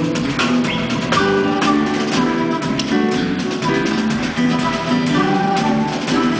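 Acoustic guitar solo played live, with quick plucked single-note runs broken by strummed strokes.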